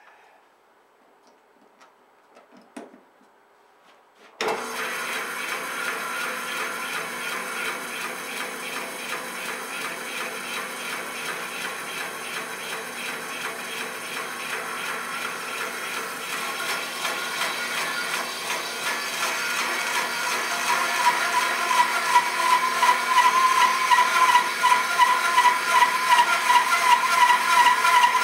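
Bandsaw starting abruptly about four seconds in and running steadily. From about twenty seconds in it grows louder with a fast wavering pulse as the blade cuts along the edge of a thick birch log.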